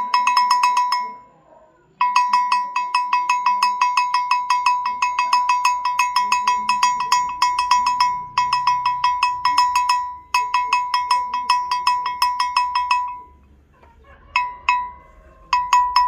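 Small rectangular metal livestock bell (chocalho) of the kind hung on goats and sheep, shaken by hand so its clapper clanks rapidly, about six strikes a second, each strike ringing one clear tone. The shaking stops briefly a few times and ends with a few single strikes.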